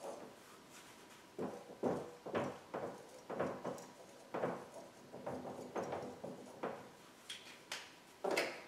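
Dry-erase marker writing on a whiteboard: a run of short, quick strokes about two a second, then a few footsteps near the end.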